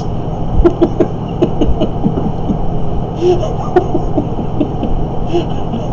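Steady low background hum, with a few faint short sounds over it.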